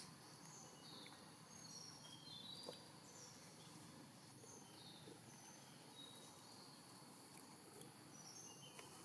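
Faint outdoor ambience: short high bird chirps come and go over a steady high insect drone.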